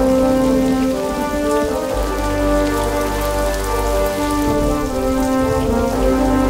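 Heavy rain pouring down, with a film score of slow, held chords sounding beneath it.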